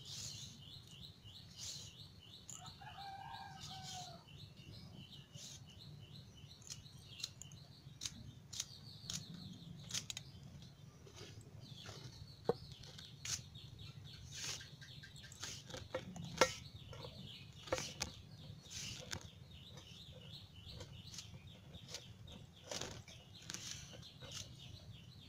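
Taro stems being peeled and snapped by hand: an irregular string of sharp clicks and snaps, over a steady high-pitched chirring. A hen clucks once about three seconds in.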